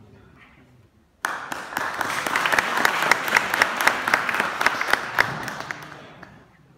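Audience applauding, breaking out suddenly about a second in, swelling, then dying away near the end.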